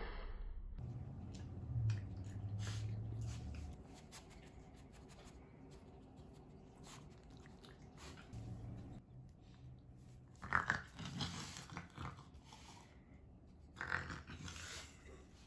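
Pet raccoon at its water tub and eating: wet chewing, dabbling and scuffling sounds over a low hum. There are two short, louder noises about ten and a half and fourteen seconds in.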